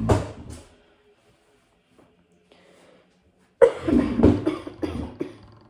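A woman coughing: after a quiet stretch, a short fit of several loud coughs starts about three and a half seconds in.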